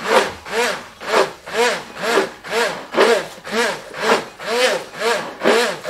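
Hand-held immersion blender running in a liquid egg, milk and butter mix, its pitch and loudness swelling and falling about twice a second as the mix is blended. It is whipping the wet mix until it turns foamy.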